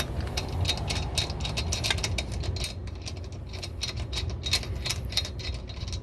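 Socket ratchet clicking rapidly and steadily as pre-loosened lug nuts are spun off a car wheel.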